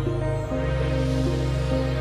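Background instrumental music: a melody of held notes over a sustained bass, which shifts to a new note about half a second in.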